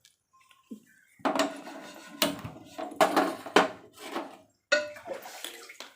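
Metal cookware being handled: pots and a lid clattering and clanking against each other, with several sharp knocks in the middle and one more clank near the end.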